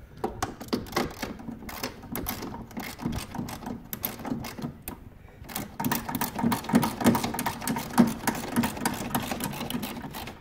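Hand ratchet with a 10 mm socket clicking rapidly as a 10 mm bolt is worked loose, with a short pause about five seconds in.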